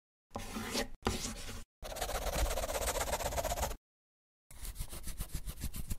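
Animated logo intro sound effects: four short bursts of sound cut off by dead silence between them, the third the longest. The last is a fast run of scratchy strokes, a marker-scribble effect for a hand-drawn loading bar.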